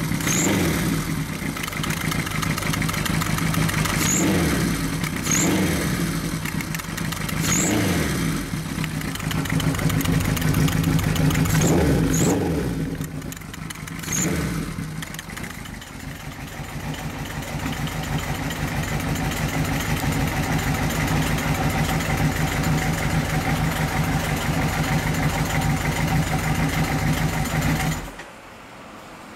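Kawasaki Z1 900 Super Four's air-cooled inline-four breathing through Yoshimura TMR carburetors. It is revved in several short throttle blips, one held higher for a few seconds, then settles to a steady idle and is switched off near the end.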